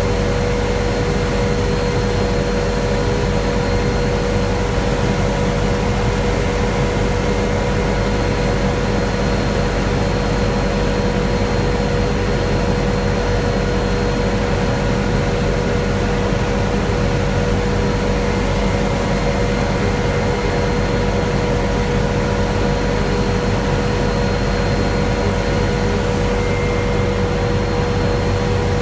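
Helicopter in cruise flight heard from inside the cabin: a steady, loud drone of rotor and turbine, with a constant hum and several thin, unchanging whines laid over it.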